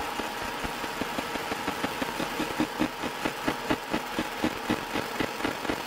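EM Smart Basic 1 fibre laser engraving into a metal block: rapid sharp pulses, about four or five a second, over a steady hum, growing stronger about two seconds in.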